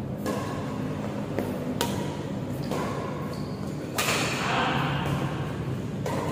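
Badminton rackets striking the shuttlecock in a doubles rally: about five sharp hits a second or so apart, echoing in a large hall, the loudest a jump smash about four seconds in.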